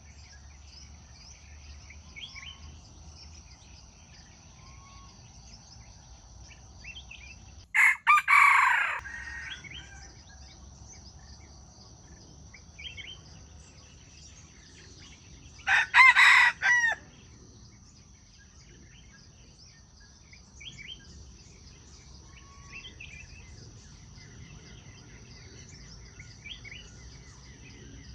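Rooster crowing twice, about eight seconds apart, each crow a loud call of a second or so broken into short sections. Faint bird chirps and a steady high-pitched hum continue in the background.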